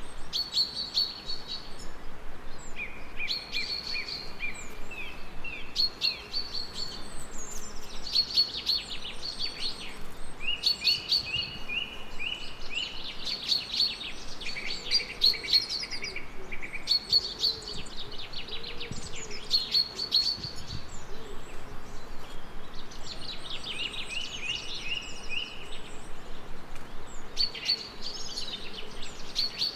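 Songbirds singing: quick phrases of chirps and trills, one after another almost without pause, over a faint steady hiss.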